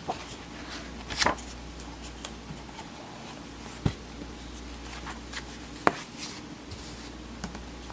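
Hands handling books between readings: a few light knocks, about one, four and six seconds in, and brief rustling, over a steady low room hum.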